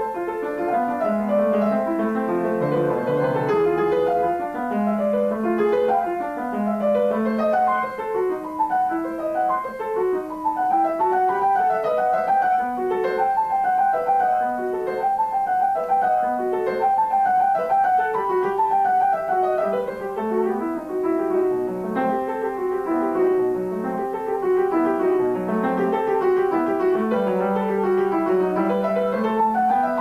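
Grand piano played solo: a classical piece in a continuous stream of notes running up and down in wave-like figures.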